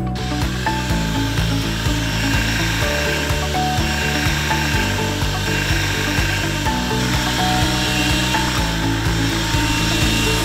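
Electrolux ZB3324B cordless upright vacuum's motor running with a steady airy whine, under background music with a steady beat.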